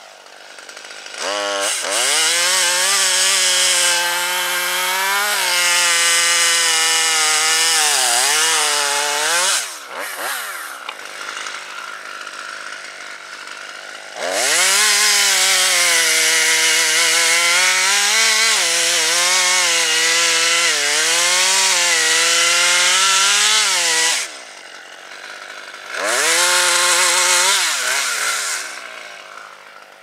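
Husqvarna T540XP two-stroke top-handle chainsaw cutting through maple limbs at full throttle. The engine pitch sags and recovers as the chain bites. There are two long cuts with the saw dropping back between them, and a short burst of revving near the end.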